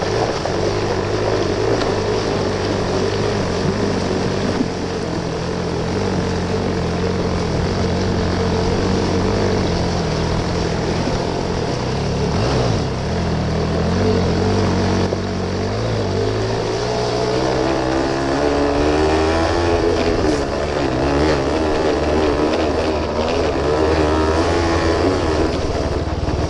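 Suzuki RV75's small two-stroke single-cylinder engine running at steady low revs as the bike rides through shallow river water, with the splash of the front wheel in the water. From about two-thirds of the way through, the revs climb and then hold higher.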